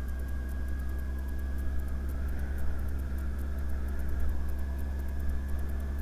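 Motorcycle engine, a Honda Hornet 900 inline-four, running steadily at low revs while riding slowly, a deep even drone.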